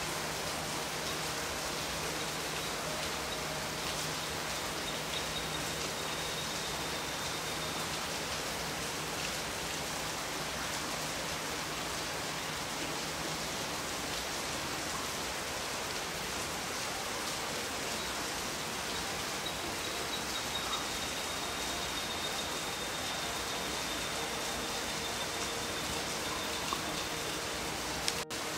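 Steady, even hiss of water, with a faint thin high tone rising above it twice.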